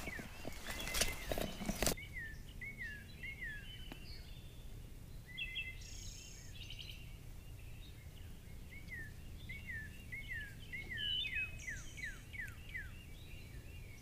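A couple of seconds of rustling movement through brush, then a songbird singing in the dawn woods: series of short, high, down-slurred whistled notes repeated in phrases of about three a second.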